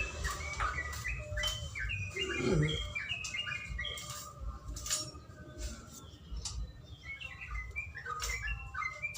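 Terocok (a bulbul) singing long runs of quick, chattering chirps, denser at the start and again near the end. A short lower note falls in pitch about two seconds in, and scattered clicks sound through it.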